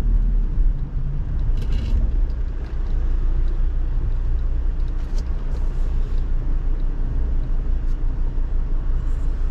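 A car driving on a road: steady low rumble of engine and tyre noise.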